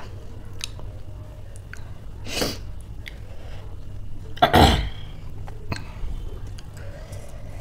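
Close-up mouth and throat noises from a person tasting food and drink: small wet lip and tongue clicks, a breathy exhale about two and a half seconds in, and a short, low throaty sound about four and a half seconds in.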